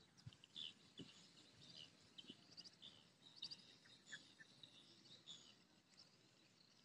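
Near silence: faint outdoor ambience with scattered short high-pitched chirps and a few soft knocks.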